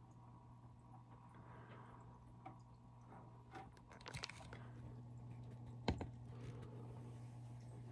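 Faint water sloshing and dripping as fish are handled in an aquarium, over a steady low hum, with scattered small clicks and one sharp knock about six seconds in.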